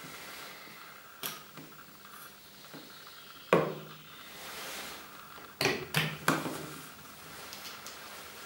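Radiation detector probes being handled and set down on a tabletop: a sharp knock about three and a half seconds in, then a quick run of three knocks around six seconds, with smaller clicks and rustle between.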